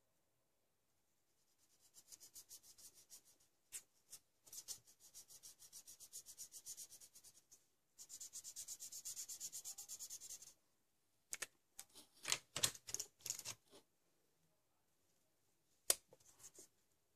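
Brown felt-tip marker scratching on paper as meatballs are coloured in: three runs of quick, even back-and-forth strokes, then a few separate, sharper strokes, all faint.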